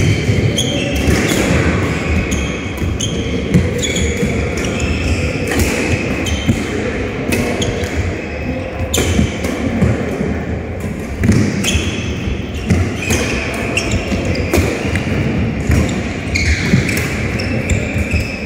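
Doubles badminton rally in an indoor hall: repeated sharp racket strikes on the shuttlecock mixed with players' footsteps thudding on the court mat, echoing in the hall.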